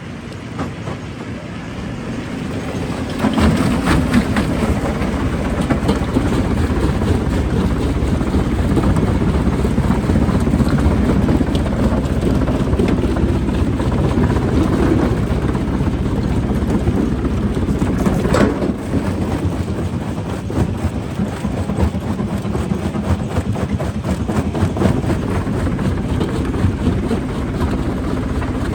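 Rock crusher running under load: a steady low machine hum under dense, irregular cracking and knocking of rock being broken. It builds up about three seconds in, with one louder crack about eighteen seconds in.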